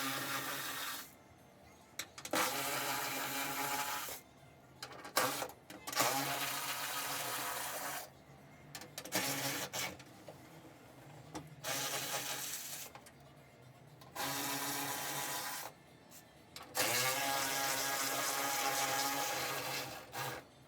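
Cordless power tool whining in about eight bursts of one to three seconds, each spinning up quickly, as the door hinge bolts are run out.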